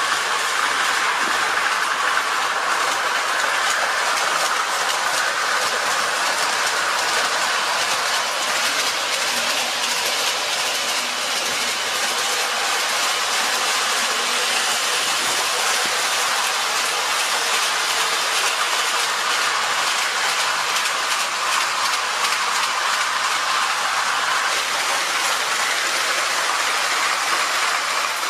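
O-scale tinplate electric model train running on metal track: a steady clatter of wheels on the rails with a dense run of fine ticks.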